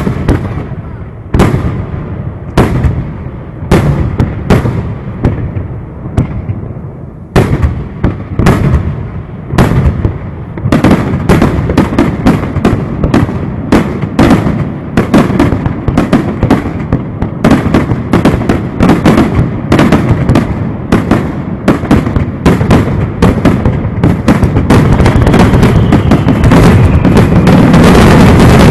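Aerial fireworks shells bursting: separate bangs about one a second at first, then from about ten seconds in a rapid string of bursts that builds into a dense, continuous barrage near the end.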